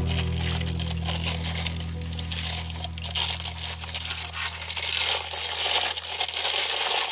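Background music holding a low sustained chord that slowly fades, under a dense crackling hiss of tiny clicks.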